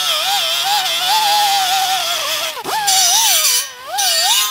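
Pneumatic die grinder with a wire wheel scrubbing the end of a steel exhaust pipe: a loud whine that wavers up and down as the wheel bites and eases off, over a hiss of wire on metal. It is cleaning the pipe to bare metal so it welds better.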